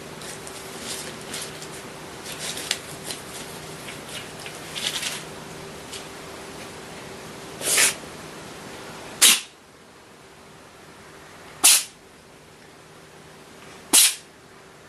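Faint scattered clicking and rustling over a steady hum, then four short, sharp bangs, each well under half a second and about two to two and a half seconds apart.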